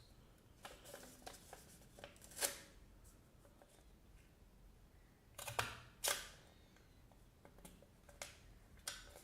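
Stapleless stapler pressed through sheets of paper, cutting and folding them without a staple: a few short sharp clicks, the loudest a pair about half a second apart just past the middle, with softer clicks between.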